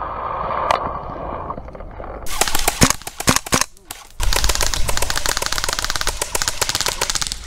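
Airsoft electric rifle (AEG) firing: a few separate shots, then from about four seconds in a long full-auto burst of rapid, evenly spaced clicks.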